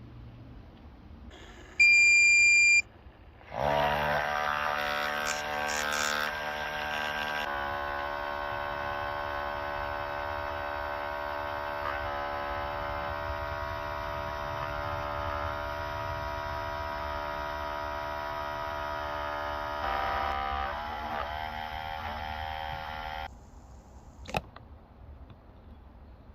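Outin portable espresso machine beeping once, then its pump running with a steady buzzing hum for about twenty seconds before cutting off suddenly. A single sharp click comes shortly after.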